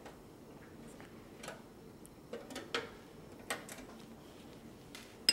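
Faint, scattered small clicks and ticks as the screw holding an old PCI card's bracket is worked out of a PC case, about half a dozen of them starting about a second and a half in.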